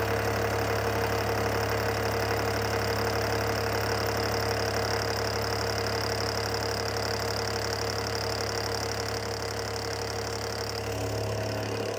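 Milling machine running a face mill through a facing cut about 40 thou deep, a steady machine hum with a higher cutting note above it. The cutting note fades near the end as the pass finishes, and the machine then stops.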